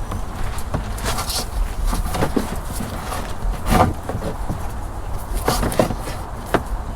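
Irregular knocks, clicks and rustles of old wiring being pulled out of a bass boat's hull, over a low steady rumble.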